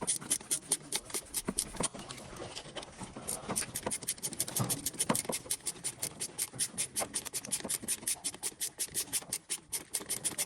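Rapid, even scratching strokes, about four to five a second, sharp and bright.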